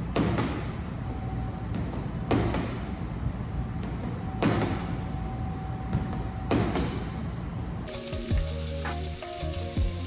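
Gloved punches landing on a heavy punching bag, a sharp thud about every two seconds over a steady room rumble. Near the end comes the sizzle of beef steak and mushrooms frying in a pan.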